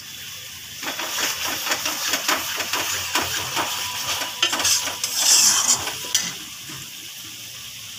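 Steel spatula scraping and stirring a thick masala paste frying in oil in a metal kadhai, over a steady sizzle, while the masala is fried until the oil separates. The stirring strokes stop about six seconds in, leaving only the sizzle.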